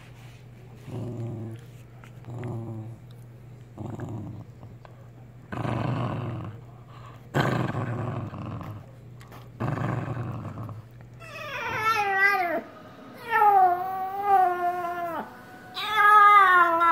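A small white curly-coated dog growls in short low rumbles, one every second and a half or two, while lying over its chew. About twelve seconds in, a grey poodle takes over with three long wavering howls that slide up and down in pitch, much like a caterwauling cat.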